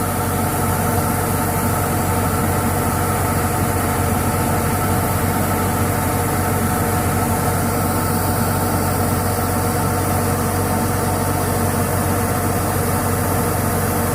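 Combine harvester's diesel engine running steadily at constant speed, with its machinery humming.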